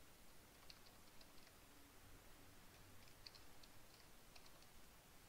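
Faint computer keyboard typing: light key clicks in two short runs, about a second in and again around three seconds in, over near-silent room tone.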